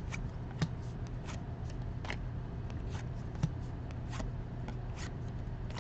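Baseball trading cards being flipped through by hand: soft, irregular card flicks about once or twice a second, over a low steady hum.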